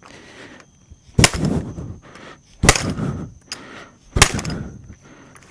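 Three sharp metallic strikes about a second and a half apart, each with a short ring after it, as a bearing puller clamped on a GM 4T40E/4T45E transaxle stub shaft is worked to free the shaft from the CV axle.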